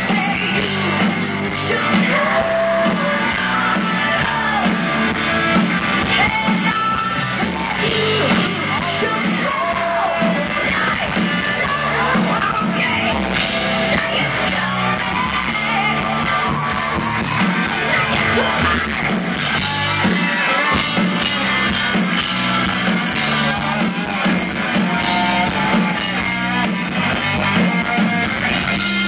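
Live rock band playing loudly, with electric guitar and singing, heard from among the crowd.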